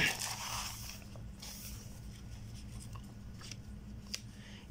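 Paper rustling as spiral-notebook pages are flipped over, strongest in the first second or so, followed by a few faint ticks of the paper being handled.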